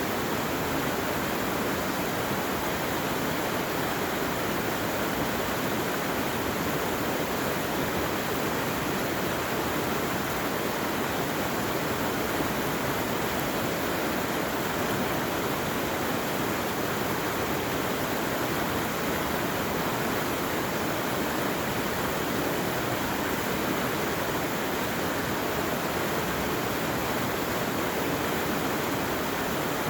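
Steady, unbroken rush of running water from a mountain stream.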